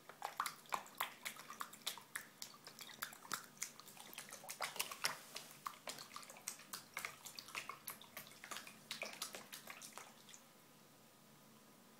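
A cat pawing and splashing at water in a plastic bucket: quick, irregular splashes and slaps, several a second, that stop about ten seconds in.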